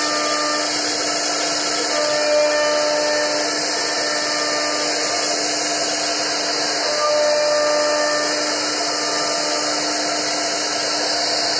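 CNC wood router's spindle running as its bit carves a relief pattern into a wooden board: a steady whine over the hiss of cutting, swelling slightly about two seconds in and again about seven seconds in.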